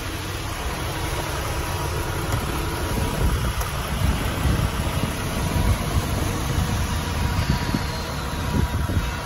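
Wind buffeting the microphone over a low, steady rumble, with a faint continuous high tone.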